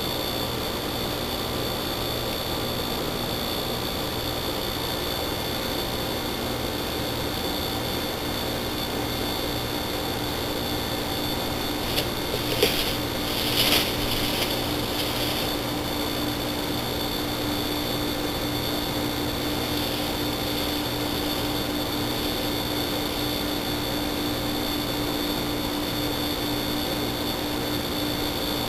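Steady hiss with a faint constant high whine and low hum from the trail camera's own recording. About halfway through comes a short cluster of brief rattles as the raccoon handles the wire-mesh live trap.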